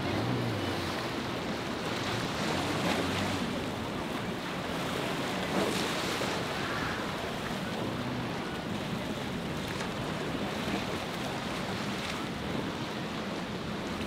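Waves and surf churning in rough inlet water, with wind buffeting the microphone and a low boat-engine hum underneath.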